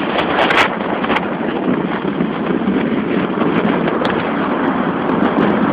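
Wind rushing over the microphone with a motorcycle engine running underneath, heard from a motorcycle riding at speed. A couple of brief crackles come near the start.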